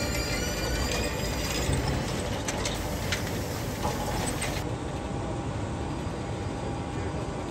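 Eurostar TGV high-speed trainset (PBA and PBKA units coupled) rolling slowly along a station platform: a low rumble of the wheels with a few faint wheel squeals and short clicks. A little over halfway through it gives way to a steadier low rumble.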